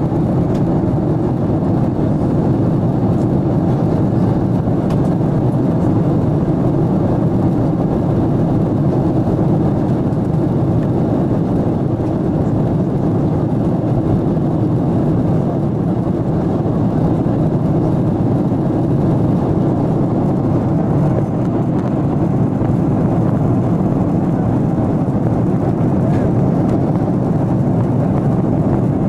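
Steady cabin noise of an airliner in flight: a constant low rush of jet engines and airflow, heard inside the cabin.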